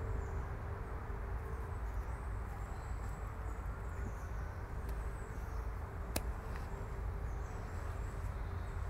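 Woodland outdoor ambience: a steady low rumble with faint high bird chirps, and a single sharp click about six seconds in.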